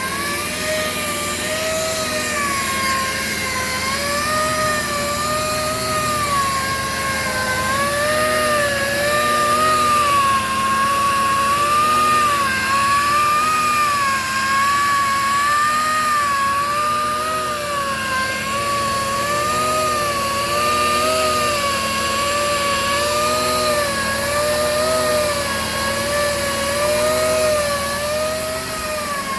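Portable in situ crankpin grinding machine running continuously, its motor whine rising and falling in pitch in a regular cycle of roughly a second as the load changes over each turn of the grind.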